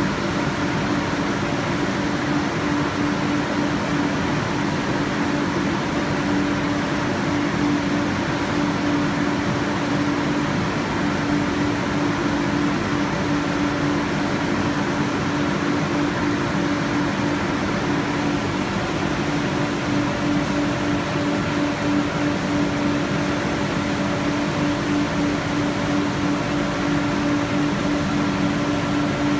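Photo-etching spray machine running: a steady mechanical hum over an even hiss of pumps and spraying etchant, with a constant low tone.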